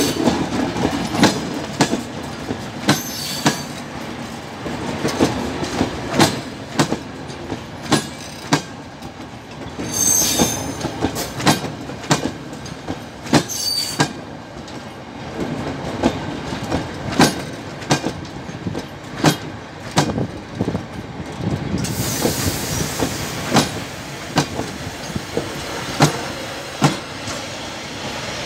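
Vintage railway passenger coaches rolling slowly past on jointed track, their wheels clicking in pairs over the rail joints. The wheels squeal briefly about ten and thirteen seconds in, and a short hiss comes later.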